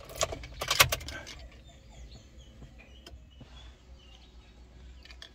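Honda CR-V being started: the ignition key clicks and jingles and the starter cranks for about a second, then the engine settles to a quiet, steady idle.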